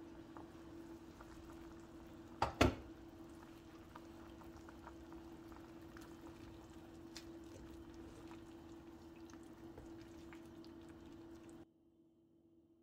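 Leek and vegetable soup boiling in a stainless-steel pot, a steady bubbling with a low hum under it, while a silicone spatula stirs it. Two sharp knocks about two and a half seconds in are the loudest sounds. The sound cuts off abruptly near the end.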